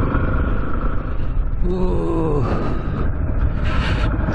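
Yamaha Serow's single-cylinder engine running as the motorcycle rides along, heard from the rider's helmet. About two seconds in there is a brief falling tone.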